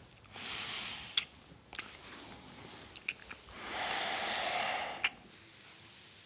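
A couple kissing: several wet lip smacks and breaths, with a longer breath about four seconds in.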